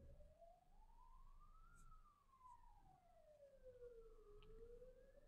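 Faint siren wailing slowly, its pitch rising and falling about once every five seconds.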